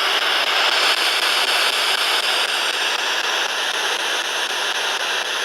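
Steady, loud static hiss.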